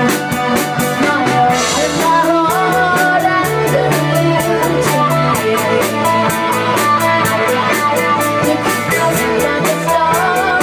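Live rock band playing: drum kit with a steady cymbal beat, electric and acoustic guitars, and a woman singing over it.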